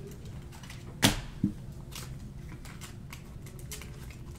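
Computer keyboard typing: scattered light clicks, with two louder knocks about a second in.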